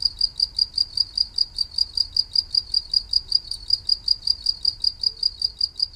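A cricket chirping in a steady, even rhythm of about five short, high-pitched chirps a second.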